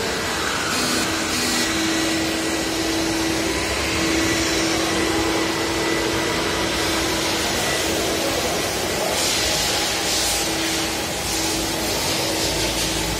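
Walk-behind scrubber dryer running: a steady hum of its suction and brush motors with a constant whine. The hiss grows louder in the last few seconds.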